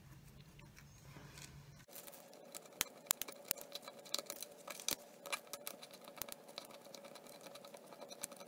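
Craft knife blade scraping a paper label and glue off a thin clear plastic soda-bottle strip: faint, irregular quick scratches and clicks, starting about two seconds in.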